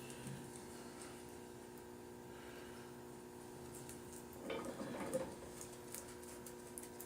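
Quiet steady hum, with a brief soft handling noise about four and a half seconds in.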